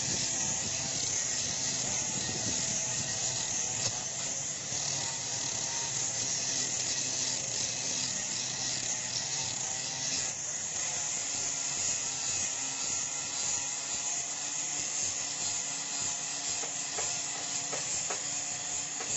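Handheld electric angle grinder running steadily with a sanding disc pressed against a wooden spade handle: a constant motor hum under the hiss of the disc on the wood.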